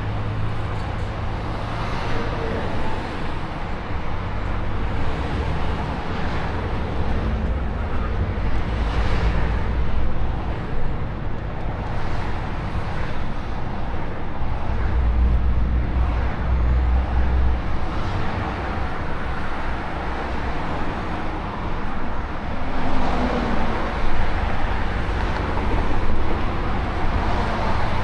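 Volvo FH 460 truck's 13-litre six-cylinder diesel running with steady road and tyre noise as the truck gathers speed slowly in motorway traffic, a deep, even rumble throughout.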